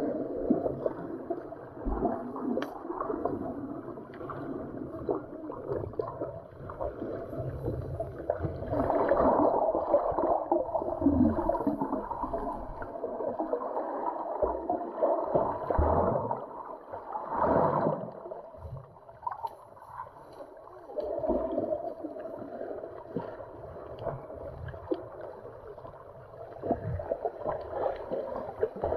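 Muffled underwater sound picked up through a waterproof camera housing: water surging and gurgling over a pebble seabed, swelling and fading every few seconds.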